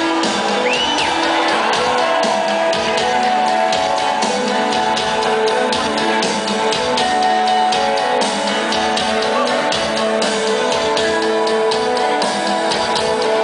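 Live instrumental rock band playing: several electric guitars hold and trade layered melodic notes over a steady, ticking drum beat.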